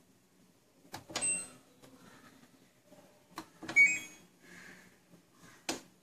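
Front-loading washing machine's control panel being set: a few button presses, each with a click and a short electronic beep, the loudest about four seconds in.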